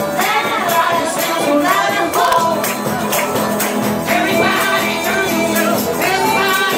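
Live acoustic music: singing over a strummed acoustic guitar, with a large skin-headed tambourine shaken and struck, its jingles keeping a steady beat.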